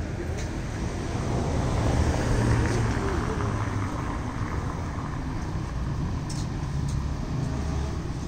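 A motor vehicle's engine running close by, a low hum that swells for a couple of seconds about a second in and then settles, over general outdoor noise.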